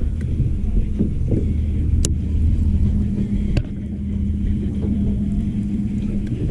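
Steady low rumble with a faint hum that sets in partway through, and two sharp clicks, about two and three and a half seconds in.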